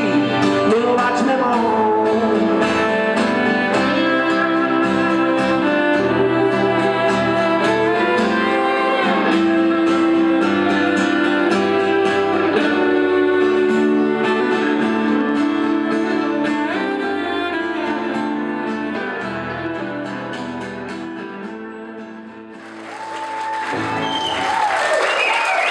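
Live music: acoustic and electric guitars with a man singing, fading out near the end. About three seconds before the end it changes suddenly to an audience applauding and cheering.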